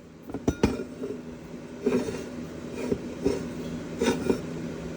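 Light metallic clinks and knocks from steel transmission parts being handled: the shaft worked inside the pump stator so its new solid Teflon sealing rings are sized down. A few separate clinks, the sharpest about half a second in, over a steady low hum.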